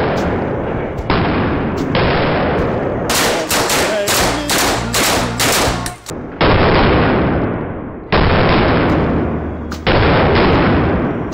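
Submachine gun firing in an echoing indoor shooting range: loud bursts that each start abruptly and ring away over a second or more, with a quick string of separate sharp shots in the middle.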